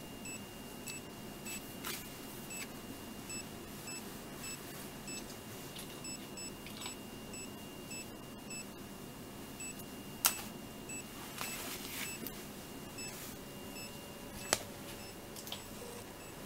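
Handheld ECG monitor beeping once for each detected heartbeat of a boxer dog with ARVC, short high beeps at a little over one a second; the rhythm carries premature ventricular beats. Two sharp knocks, the loudest sounds, come a little past the middle and near the end.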